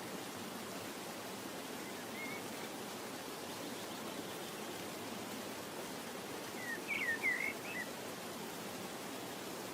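Steady background hiss, with a short flurry of bird chirps about seven seconds in and a single faint chirp about two seconds in.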